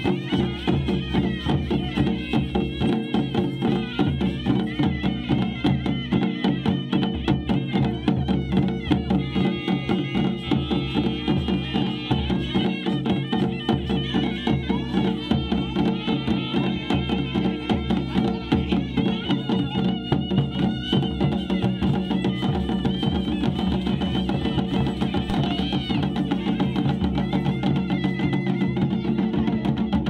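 Traditional Pahari folk music: drums beating a steady, driving rhythm under a high, wavering melody line.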